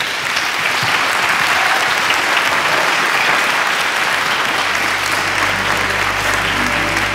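Steady applause at the close of a keynote. About four and a half seconds in, music fades in under it with a low held bass note and sustained chords.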